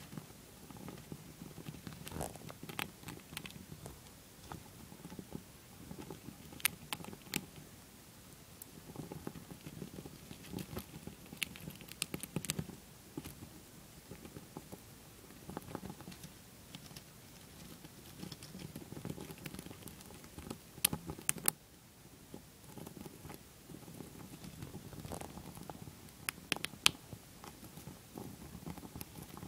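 Dwarf hamster chewing a shelled peanut: small sharp crunches and clicks at irregular intervals, over a soft rustling of paper bedding.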